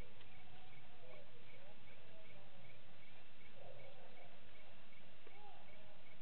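Night-time animal calls: a short high chirp repeating steadily about three times a second, with lower wavering, gliding calls coming and going over it.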